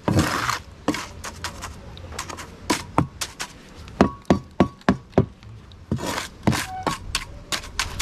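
Irregular sharp knocks and clinks of masonry work on concrete blockwork and steel reinforcing bar, several with a short metallic ring.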